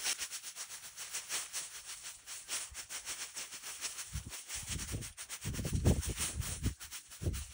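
A twig broom sweeping over bare dirt and dry leaves, in quick repeated scratchy strokes, with some low rumbling in the second half.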